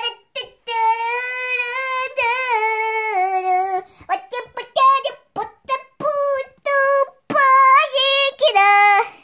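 A high-pitched voice singing without clear words: a long held note for about three seconds, then a run of short syllables, then more held notes near the end.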